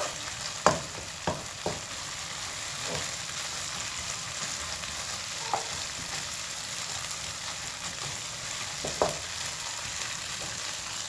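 Ground spice paste of shallot, garlic and chili sizzling in a wok while it is stir-fried with a wooden spatula, with a few short knocks and scrapes of the spatula against the pan, the sharpest about a second in and near nine seconds.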